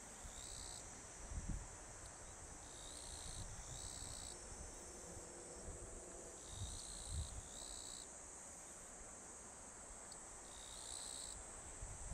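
Insects calling in a steady high chorus, with shorter calls of about half a second that come and go several times, and a few soft low bumps.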